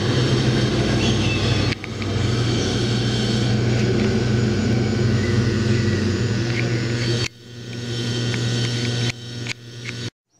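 Steady electric motor hum from a turtle tank's water pump or filter, with a wash of water noise. It drops and changes abruptly several times: at about two seconds in, again past the seven-second mark, and twice more near the end.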